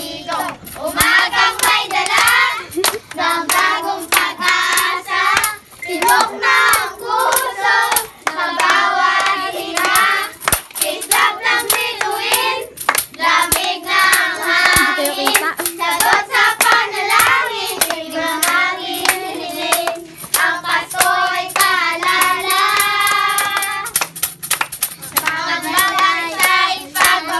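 A group of children singing a Christmas carol together, kept in time by steady tapping of a hand-held tambourine and clapping.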